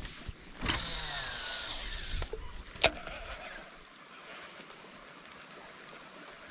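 Baitcasting reel spool whirring as a lure is cast, its whine falling in pitch as the spool slows, followed by a sharp click as the reel is engaged for the retrieve. After that, only faint low sound.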